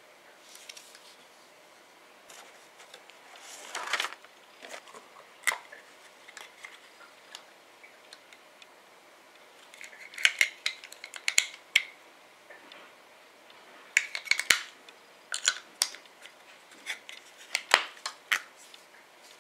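Small sharp plastic clicks and taps from a ZEXUS LED headlamp being handled: its battery cover opened, batteries pushed into the compartment and the cover pressed shut. The clicks come in scattered clusters and are busiest in the second half.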